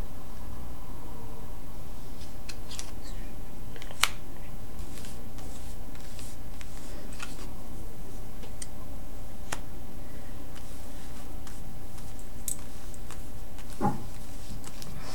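Tarot de Marseille cards being laid and spread by hand on a cloth-covered table: soft, scattered clicks and snaps of card on card, the sharpest about four seconds in and a duller knock near the end. A steady low hum runs underneath.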